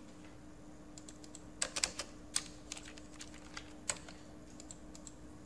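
Computer keyboard keystrokes and mouse clicks, sparse and irregular, with a quick run of clicks about two seconds in, over a faint steady hum.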